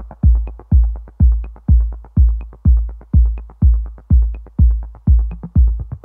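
Background electronic dance music: a deep kick drum on every beat, about two a second, with a light click on every other beat.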